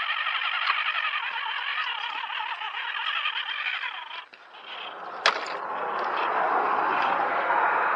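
Electric motor and gear drive of a radio-controlled scale crawler whining as it creeps over rocks, the pitch wavering up and down with the throttle. A sharp click comes about five seconds in, and the whine then turns rougher and lower as the truck climbs onto the boulders.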